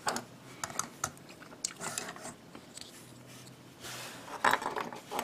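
Hard plastic parts of a Bandai G-Frame Gundam figure being handled and pressed together: a scattering of short clicks and light rattles.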